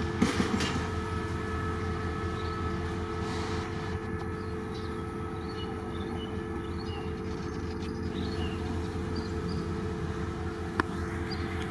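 Diesel locomotive idling at a standstill: a steady hum with several held tones, a short knock just after the start and a sharp click near the end.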